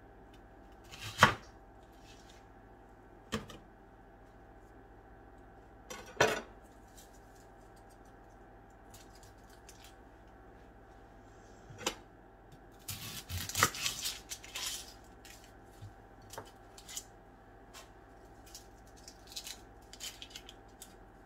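Kitchen knife cutting onions on a plastic cutting board: single sharp chops about a second in and at roughly three, six and twelve seconds, then a busier clatter of knocks for a couple of seconds. Light clicks and rustling follow as dry onion skin is peeled.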